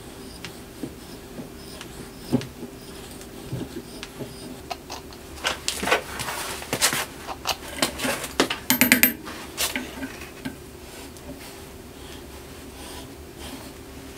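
Steel flange being tapped by hand: a scatter of small metallic clicks, clinks and scrapes from the tap and its wrench, busiest in the middle stretch, over a steady low hum.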